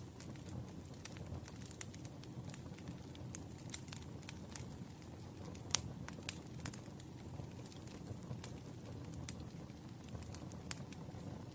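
Wood fire burning in a fireplace: a steady low rumble with irregular crackles and occasional sharper pops of burning logs.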